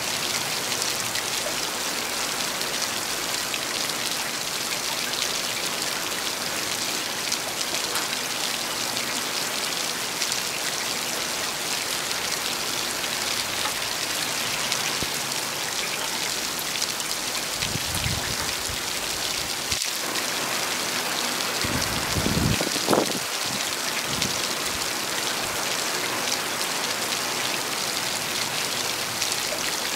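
Heavy rain falling steadily, a dense even hiss, with a few brief low rumbles about two-thirds of the way through.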